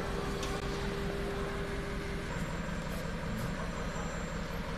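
Steady hum of the CNC router's machinery, with a faint steady tone that stops a little before halfway through.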